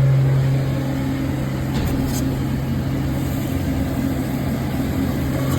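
A steady low engine-like hum runs throughout, with two light clicks about two seconds in.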